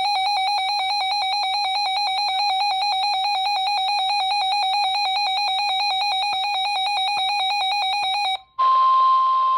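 A weather alert radio's built-in alarm sounds as a new warning is received: a loud, rapidly warbling electronic tone that runs steadily, then cuts off about eight and a half seconds in. The radio's speaker then opens on the NOAA Weather Radio 1050 Hz warning alarm, a steady single tone heard over the radio's hiss.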